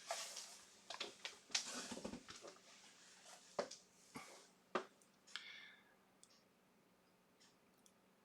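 Faint scraping and sharp clicks of a small steel hand tool picking caked rust off a watch mainplate, with flakes of rust breaking away. The scraping stops after about five and a half seconds, leaving near silence.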